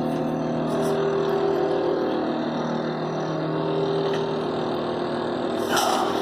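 Commercial machine on a neighbouring premises' wall running with a steady droning hum of several steady tones over a broad whoosh, the kind of noise that keeps neighbours awake at night. A short louder burst of noise about six seconds in.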